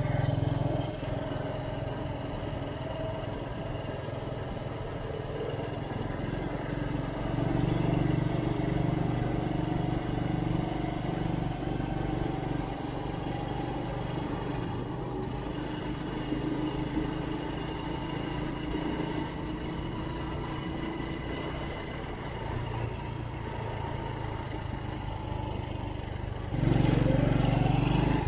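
Motorcycle engine running under way, its pitch rising and falling with speed. It picks up about a quarter of the way in and again near the end, where the pitch climbs sharply.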